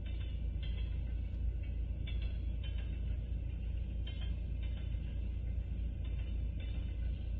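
Freight train rolling through a level crossing, heard from inside a car: a steady low rumble with a faint rhythmic clatter, two clicks close together about every two seconds.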